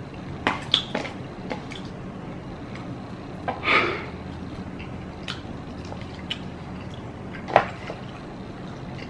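A person eating instant cup noodles with chopsticks: wet chewing and mouth sounds, a longer slurp-like noise about four seconds in, and several short light clicks.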